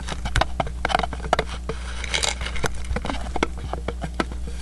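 Handling noise: irregular light clicks and taps as a kaleidoscope mirror assembly and the objects in front of it are held and moved about, over a steady low hum.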